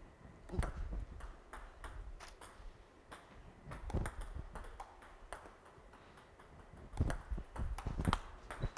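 Celluloid-type table tennis ball clicking off rubber paddles and bouncing on the table during a serve-and-receive exchange: an irregular series of sharp clicks.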